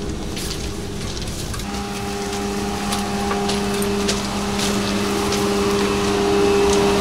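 Electric commuter train giving off a steady electric hum that gets stronger about a second and a half in, with scattered short crunching clicks like steps on track ballast.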